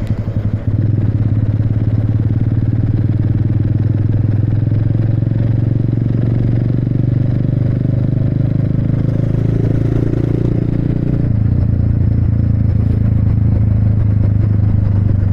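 Motorcycle engine running steadily while riding. Its note swells briefly and drops back at about eleven seconds in.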